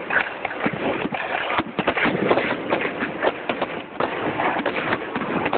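Fireworks going off: a rapid, irregular run of sharp pops and crackles.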